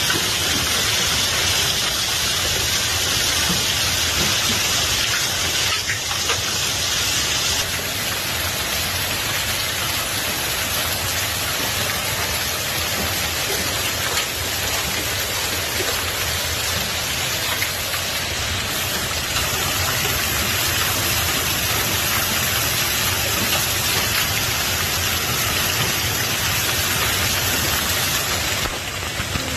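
Heavy hail and rain falling, a dense steady hiss of countless small impacts on the ground and surfaces. The sound changes in character about eight seconds in and again near the end.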